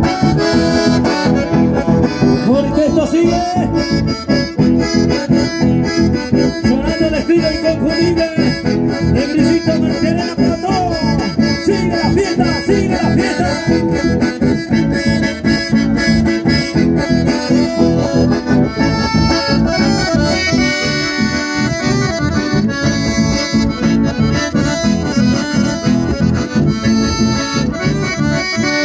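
Live chamamé played on accordions with acoustic guitars strummed to a steady dance rhythm, the accordions carrying the melody.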